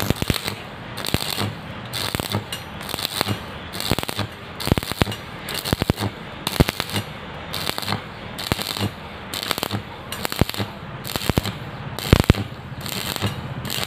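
Stick (shielded metal arc) welding on square iron pipe: the electric arc crackles and sputters steadily, swelling in bursts about twice a second.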